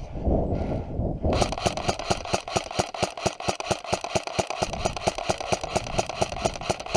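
Airsoft electric gun firing full-auto in a long steady burst, about ten shots a second, starting about a second in.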